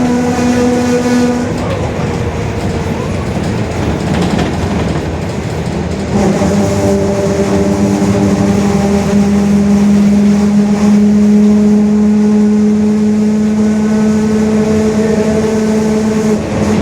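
Mercedes-Benz OF-1721 bus's differential droning very loudly as the bus drives, an abnormal gear noise. The tone fades in the first couple of seconds, then comes back strongly about six seconds in and holds steady, edging slightly up in pitch.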